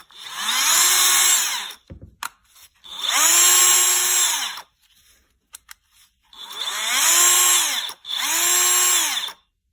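Motor of a Craftsman CMCF940 heavy impact wrench, run with its gearbox and hammer removed: four short trigger pulls, each a spin-up whine that holds and then winds down. It runs without the metal clatter it made when assembled and sounds normal, which points the abnormal noise to the gearbox.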